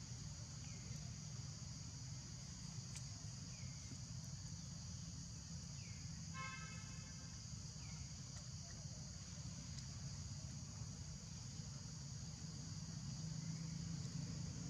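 Outdoor ambience: a steady high drone of insects over a constant low rumble, with a brief flat tooting tone about six and a half seconds in.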